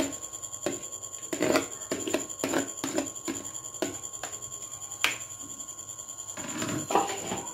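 Chopped spinach shaken and pushed by hand out of a plastic colander into a plastic bowl: rustling leaves and light knocks and scrapes of plastic, with a sharper click about five seconds in. A faint steady high whine runs underneath.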